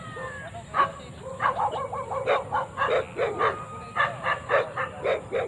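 Dogs barking, a quick run of short barks about four a second, starting about a second and a half in.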